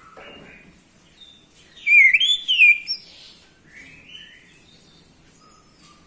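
Orange-headed thrush (anis merah) singing: varied whistled notes, loudest in one quick run of sweeping notes about two seconds in, with softer notes before and after.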